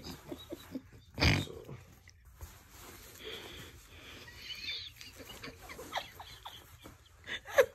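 Wheezy, breathy laughter held back between gasps, with a loud burst of laughter about a second in and another near the end.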